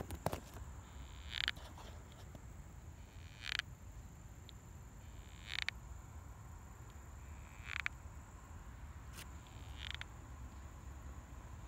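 Short scratching, clawing scrapes from something unseen inside a wood pile, coming about every two seconds. The sawdust-like material found there points to a creature boring into the wood.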